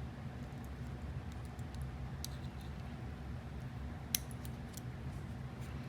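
Small metallic clicks and ticks of a Fab 100 lock's pins, springs and plug being handled while the pin stacks are loaded back into the housing, with one sharper click about four seconds in. A steady low hum runs underneath.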